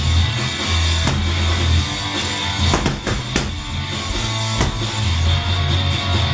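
Rock music with a drum kit and guitar, sustained bass notes under regular drum hits.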